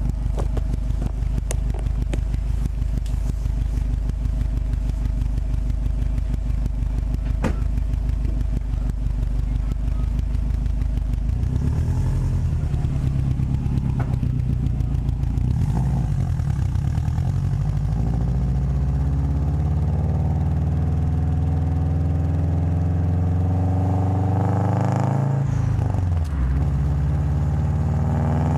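Subaru WRX turbocharged flat-four engine and exhaust running steadily at idle, then revving and accelerating, rising in pitch, with a brief drop near the end like a gear change before climbing again.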